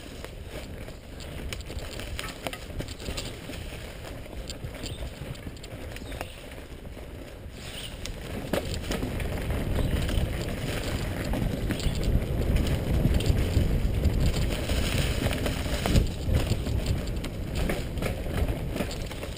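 Mountain bike rolling fast down a leaf-covered dirt singletrack: tyres running over dry leaves and dirt with a steady rough rumble and the odd knock from bumps, louder from about eight seconds in.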